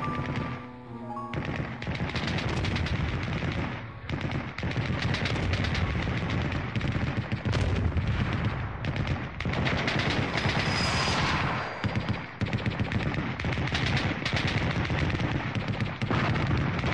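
Rapid machine-gun fire in long, near-continuous bursts, with a few brief lulls, over background music.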